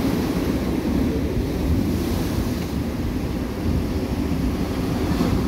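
Rough, storm-driven sea surf churning and breaking against the shore in a steady wash, with wind buffeting the microphone.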